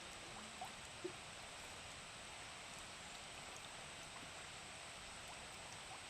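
Steady, faint rush of water falling at a waterfall, an even hiss with a thin high tone running over it. Two small faint sounds come about half a second and a second in.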